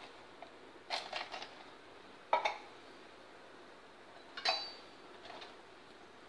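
Steel spoon and spice tin clinking against stainless steel bowls: a few separate short clinks, one with a brief metallic ring.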